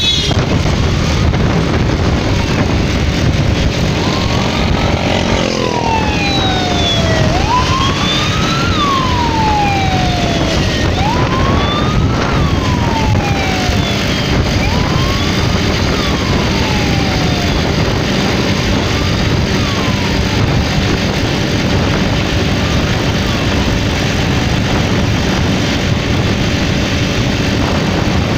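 Steady rush of wind and motorcycle engine noise while riding along a road. From about four seconds in, a siren wails up and down in pitch, fading out by around twenty seconds.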